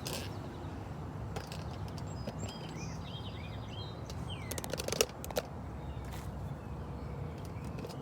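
Small birds chirping in short repeated calls over a steady low outdoor rumble, with a couple of sharp clicks about five seconds in.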